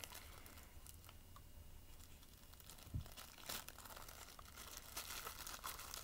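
Plastic bag wrapping crinkling faintly and tearing as it is pulled off a potted plant, with a soft knock about three seconds in.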